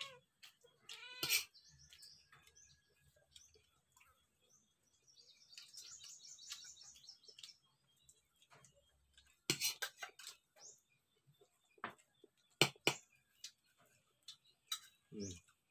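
Domestic cat meowing about a second in and again briefly near the end. Between the meows come scattered sharp clinks of a spoon on a plate as someone eats.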